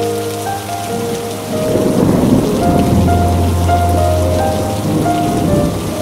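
Steady rain falling, with a rumble of thunder that swells about a second and a half in and fades near the end, over soft music of long held notes.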